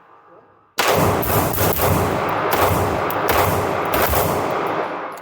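A fast string of pistol shots from a SIG Sauer P226-X Legion SAO, fired in quick succession as follow-up shots, starting about a second in and running for about four seconds. The shots echo into one another before fading near the end.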